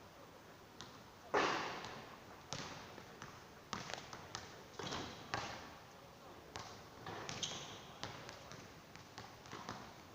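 Basketball bouncing and thudding in a series of sharp impacts at uneven intervals, the loudest about a second and a half in.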